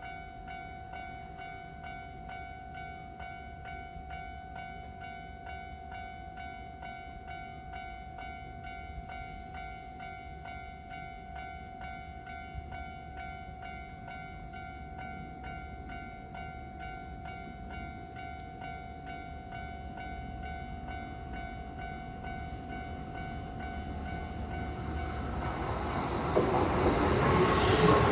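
Japanese level crossing's electronic warning bell ringing in an evenly repeated ding over the whole stretch. Over the last few seconds an approaching Keihan Main Line electric train grows steadily louder and comes past at the end.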